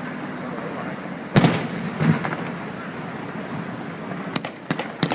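Fireworks going off: two heavy booms about a second and a half and two seconds in, then a rapid crackle of many small pops near the end.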